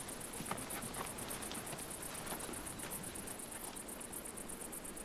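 Insects chirping steadily in a rapid, even, high-pitched pulsing over a faint background hiss.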